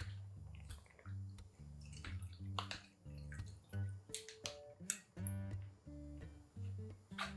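Acoustic guitar background music with a steady repeating bass line, over scattered short clicks and drips as a small plastic pouch is squeezed out over a bowl of cold noodles.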